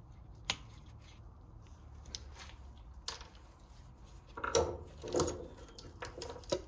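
Handling noises at a car's front brake caliper: a few sharp light clicks and some rubbing, with a short scuffle about four and a half seconds in.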